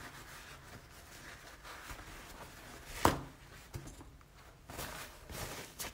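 Quiet desk handling sounds: faint rustling, with one sharp tap about three seconds in and a few lighter ticks after it.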